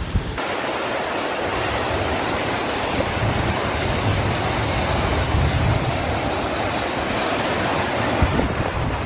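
Steady, loud rushing noise of a heavy rainstorm, with pouring rain and water.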